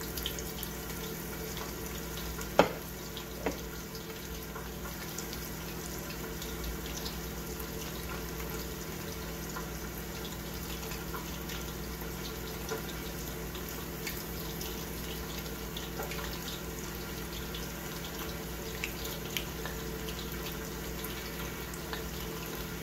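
Panko-battered squid rings deep-frying in a small saucepan of hot oil: a steady sizzle of bubbling oil. A sharp click sounds about two and a half seconds in, and a fainter one a second later.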